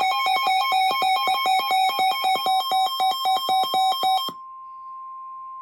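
Weather radio alert alarm, a rapid electronic beeping that alternates between two pitches about five times a second, over the steady NOAA Weather Radio warning alarm tone. About four seconds in the beeping stops abruptly and the single steady tone carries on alone, the signal that a warning such as a flash flood warning is about to be read.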